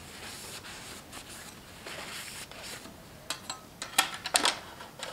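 Paper towel rustling as it wipes a metal oil dipstick, then the dipstick scraping and clicking back into its tube on a lawn tractor engine, with a quick run of sharp clicks in the second half.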